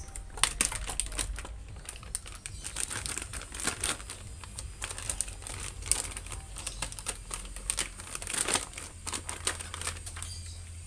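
Clear plastic zip-lock bag crinkling and crackling irregularly as it is handled, opened and a camera mount is drawn out of it.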